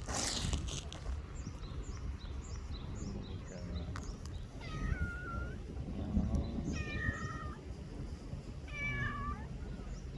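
Young brown-and-white cat meowing three times, each meow under a second long and about two seconds apart.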